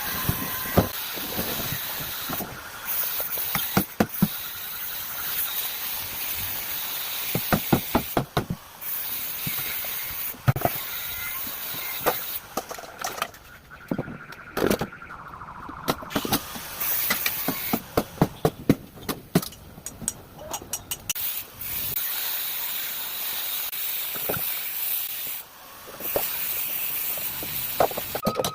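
A scrap refrigerator being broken up: repeated sharp knocks, often in quick runs of several blows, over a steady high hiss.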